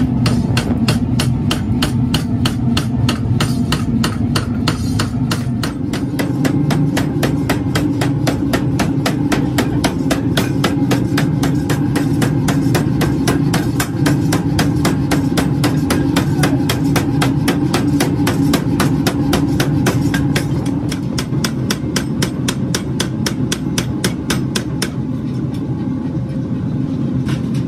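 Mechanical power hammer forging a red-hot steel billet with a rapid, even run of blows over the steady running of its belt-driven drive. About 25 seconds in the blows stop and the machine keeps running.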